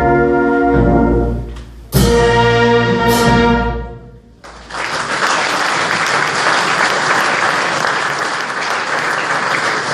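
Wind band playing the closing chords of a funeral march: held brass chords fade, then a loud final chord with a crash about two seconds in rings away. The audience breaks into applause a little before halfway and keeps clapping to the end.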